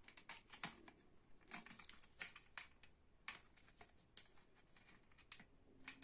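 Faint, irregular plastic clicks and rustles of a rocker switch and its cover being handled and pushed into the chrome control panel of a Thermex electric water heater.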